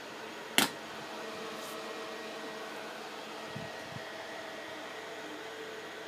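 Steady drone of the cooling fan on an air-cooled argon ion laser running, with a faint hum. One sharp click sounds about half a second in.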